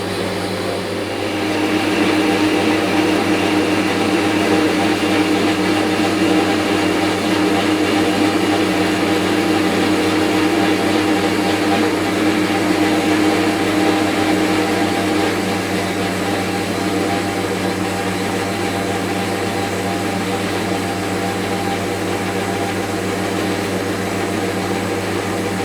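4x6 horizontal metal-cutting bandsaw running steadily, its blade working through metal stock. The sound gets louder about a second and a half in and eases off a little about halfway through. The owner suspects too much spring tension is leaving too little weight on the blade, so it cuts slowly.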